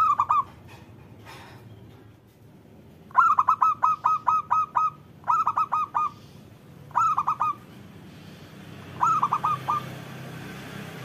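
Zebra dove (perkutut) cooing in five bursts of quick repeated notes, the longest run of about eight notes near a second and a half long, with pauses of a second or more between bursts.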